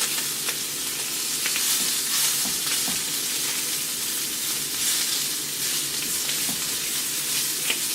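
Meat frying in a pan, a steady sizzle with small pops and crackles scattered through it.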